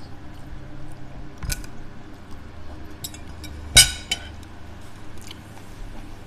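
Metal cutlery clinking on a ceramic plate, with a sharp clack about four seconds in as the fork and knife are set down on it, amid a few lighter clicks of eating and chewing.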